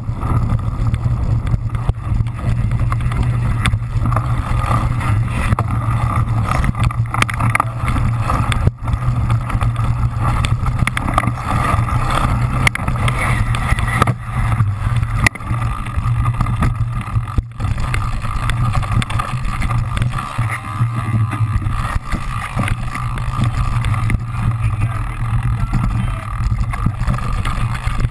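Steady low rumble of wind and vibration on a camera mounted on a cyclocross bike, with frequent small knocks and rattles as the bike runs over rough dirt and sand.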